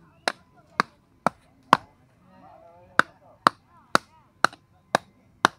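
Meat and bone of slaughtered sacrificial cattle being chopped with a blade in steady strokes, about two a second: four chops, a break of about a second, then six more.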